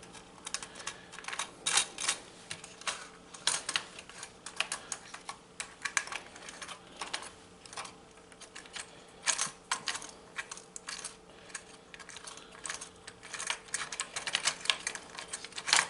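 Runs of small, rapid metal clicks from hand tools and hardware as the nuts and lock washers on the MIDI fuse studs are worked and tightened, with short pauses between runs.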